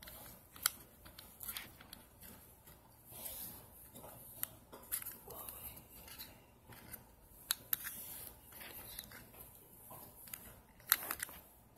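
Irregular small clicks and soft rustling as a cable is handled and hooked into an automatic cable winder, with a few sharper clicks spaced through it.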